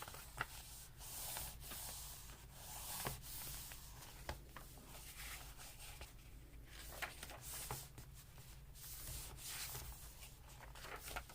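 Faint rustling and rubbing of paper being handled and pressed down by hand, with scattered small clicks.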